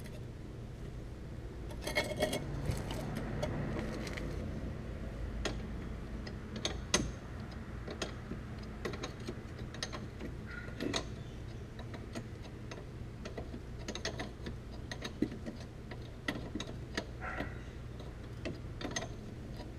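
Scattered metallic clicks, clinks and knocks of hand tools working a car's front sway bar end link loose, over a steady low hum.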